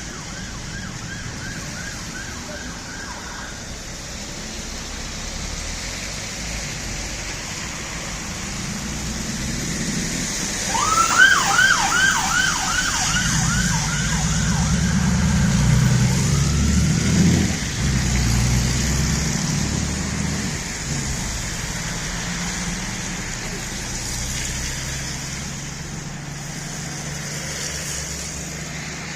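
Road traffic with an emergency vehicle's siren on its fast yelp cycle, a quick repeated rising whoop. It is faint at the start, then loud for a few seconds about ten seconds in, while a vehicle's engine rumbles past under the steady hiss of traffic.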